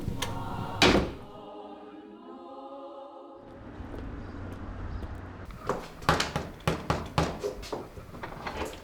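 A door slams shut with a single loud thud, followed by a brief sung choral chord. Later comes a run of sharp, irregular knocks and taps.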